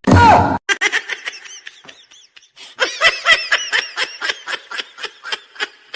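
Laughter: a rapid run of short, repeated laughs, after a brief loud sound with a falling pitch at the very start.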